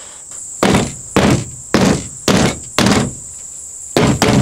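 Elbow strikes hammering a rifle scope mounted on a 17 HMR rifle: five dull thumps about half a second apart, a pause, then two more near the end. Crickets chirr steadily underneath.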